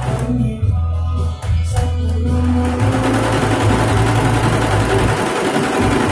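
Golden Flying Horse computerized embroidery machine stitching a patch. Its stitching noise stops for about two and a half seconds near the start while a low hum continues, then starts again and runs on steadily.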